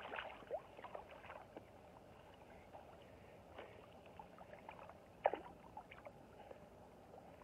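Water splashing as fish are released from a keepnet into the river, then low steady river water with scattered small splashes as the net is lifted, and one short sharp sound about five seconds in.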